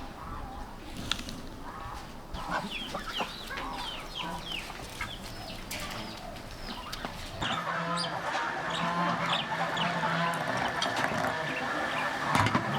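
Chickens clucking, with many short high chirps. About two-thirds of the way through, a steady noise with a low hum comes in underneath and continues.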